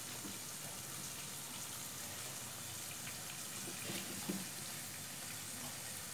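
Kitchen knife slicing fried fermented pork on a thick wooden chopping block, with a couple of soft knocks about four seconds in, over a steady low hiss.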